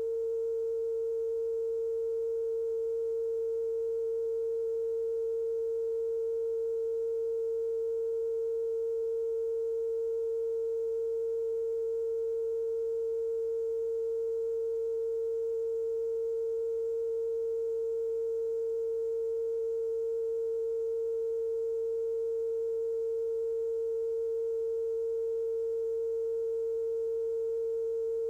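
A steady, unbroken single-pitch test tone from a TV station's broadcast, held at a constant level with faint overtones.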